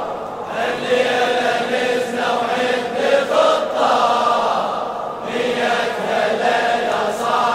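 A large crowd of men chanting a Shia latmiya (Muharram mourning chant) refrain together in unison.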